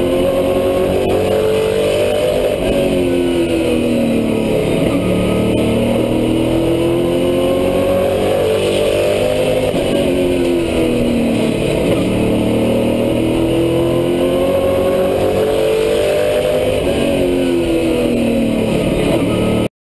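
Southeast Super Truck race truck's engine at racing speed, heard from inside the cab: the revs rise down the straights and drop off into the turns, several times over. The sound cuts off abruptly near the end.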